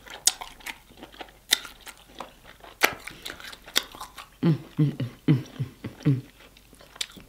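Close-up eating sounds of sauce-covered lobster tail meat: chewing with sharp wet lip smacks and mouth clicks. A quick run of short hums comes in the middle.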